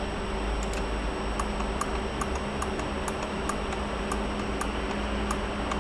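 Light, short clicks from computer controls at the desk, about two a second, over a steady low electrical hum.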